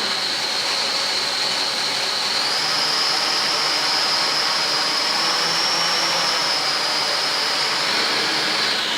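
Litehawk Quattro quadcopter's small electric motors and pinion gears whining steadily under throttle, the pitch rising a little about two and a half seconds in and dropping back near the end. Just a little residual gear noise is left after two pinions that sat at the wrong height were reset.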